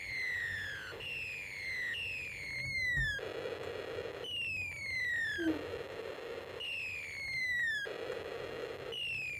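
Snap Circuits speaker playing an electronic 'bomb dropping' sound effect: a series of falling whistles, each about a second long, broken every couple of seconds by a lower buzzing blast. It plays on continuously because a spinning DC motor has taken the place of the switch.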